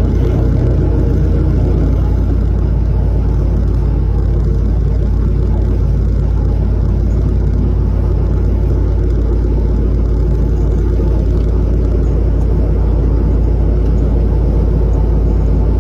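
Fishing boat's inboard engine running steadily under way, a loud, unchanging low drone with an even hum.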